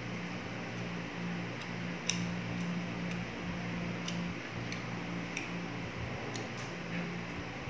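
Eating sounds: irregular small clicks and smacks of chewing and lip smacks as food is eaten by hand, over a steady low hum.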